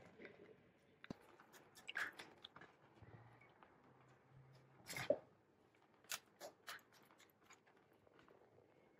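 Faint, scattered clinks and scrapes of a metal spoon against a metal pan and a perforated aluminium colander as thick, sticky flour batter is scooped across, with a cluster of three clicks a little past the middle.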